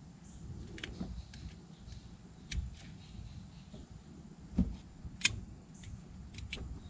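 Scattered sharp plastic clicks and scrapes as a small flathead screwdriver pries the clips off the plastic top cover of a Duramax ECU wiring connector, the two loudest clicks a little past halfway.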